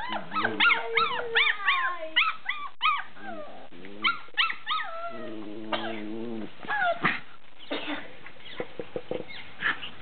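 Cairn terrier puppies yipping and squealing in rough play. A rapid string of short high yelps, each rising and falling, fills the first couple of seconds, followed by scattered yips and a few sharp taps.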